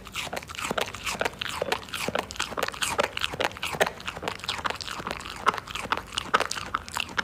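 A Siberian husky with its mouth right at the microphone, making a quick, irregular run of wet mouth clicks and jaw smacks with short squeaky whines mixed in.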